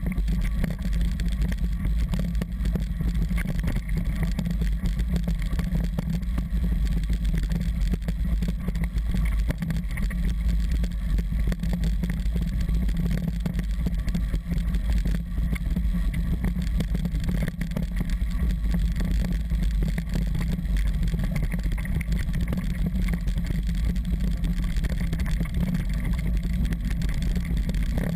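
Steady low rumble of mountain-bike tyres on a gravel track, mixed with wind buffeting the mounted camera's microphone.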